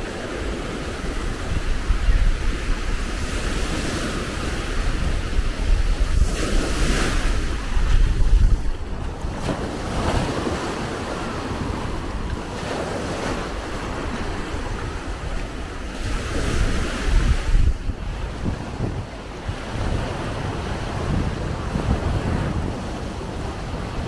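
Small Black Sea waves breaking and washing up the shore, swelling and easing every few seconds, with wind rumbling on the microphone.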